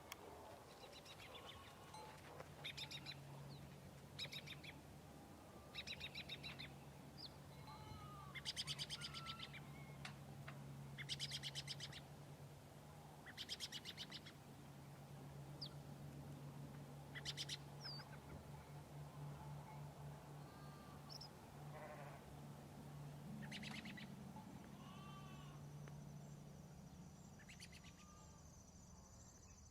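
Faint prairie ambience: short buzzy high trills repeating every two to three seconds, small chirping bird calls, and a low steady hum underneath, with a steady high insect drone near the end.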